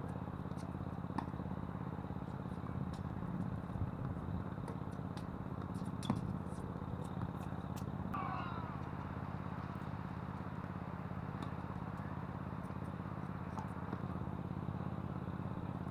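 Strong wind buffeting the action camera's microphone in a steady low rumble, with a few sharp pops of tennis balls struck by rackets, the loudest about six seconds in. A brief squeak sounds about eight seconds in.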